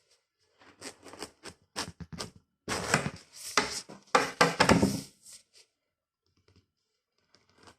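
Knife cutting into a large watermelon: a run of irregular crisp crunches and taps, thickest about three to five seconds in, then stopping.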